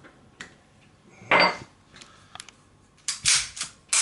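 Sharp metal clicks and clinks of a 1911 pistol's barrel bushing being turned with a bushing wrench over the compressed recoil spring. A handful of separate strikes, the loudest about a second and a half in and a quick cluster near the end.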